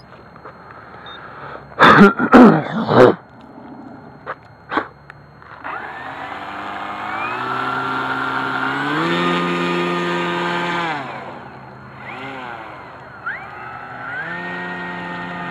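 A few loud knocks about two seconds in, then a scratch-built foam RC airplane's motor and propeller run up to a steady whine that climbs in pitch in steps, is throttled back near eleven seconds, blips once and climbs again for the takeoff roll.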